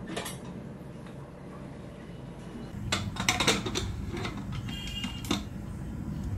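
Metal clatter of an aluminium pressure cooker's lid being fitted and handled on the gas stove: a quick run of clanks and clicks about three seconds in, then a few lighter clicks and a short metallic ring.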